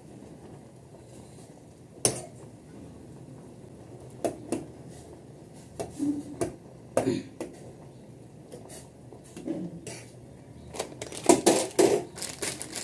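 Utensils and dishes clinking and knocking against each other in irregular, scattered hits, busier and louder near the end.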